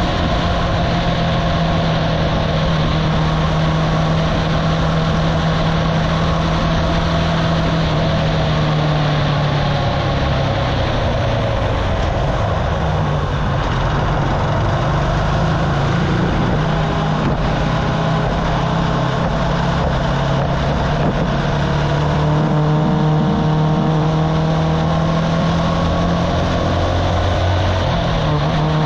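Archive Motor AM60 125cc motorcycle engine running at a steady cruising speed in a road tunnel, over road and wind noise. The engine note dips and wavers for a few seconds in the middle, then settles back to a steady pitch.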